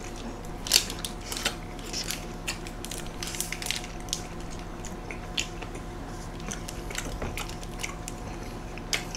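Close-miked chewing and biting of large burgers: soft, irregular wet mouth clicks and smacks, over a steady low hum.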